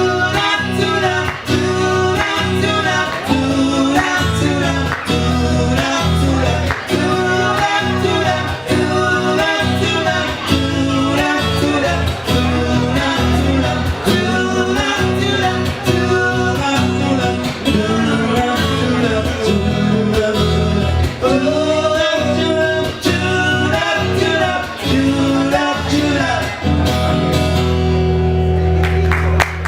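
Live band playing a pop-rock song on guitars, bass and drums, with a steady beat and a lead melody over it. Near the end the beat stops and the band holds a final chord.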